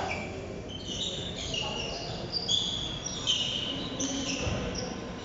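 Indoor volleyball game: short high shoe squeaks on the court floor and ball hits, the two sharpest about two and a half and three and a quarter seconds in, with players' voices in a large echoing hall.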